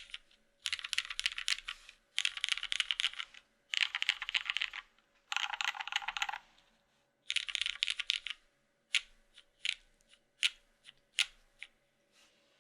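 Mechanical keyboard being typed on: a Matrix 2.0 ADD VKG, top-mounted with a forged carbon fiber plate, with lubed and filmed vintage Cherry MX Black switches and GMK keycaps. Five fast runs of keystrokes about a second long each, then, about three-quarters of the way in, a string of separate single keystrokes.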